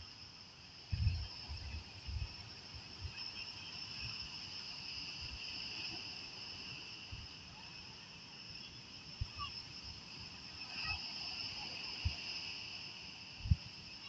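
Insects trilling steadily at a high pitch over a faint wash of surf, with a few short low thumps near the start and again near the end.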